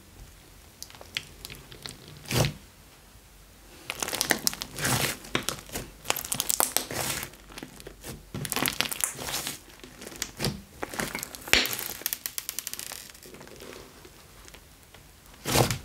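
Clay slime being pressed and squeezed by hand, giving runs of rapid crackling clicks and squelches. A single sharp pop comes about two and a half seconds in, and another near the end.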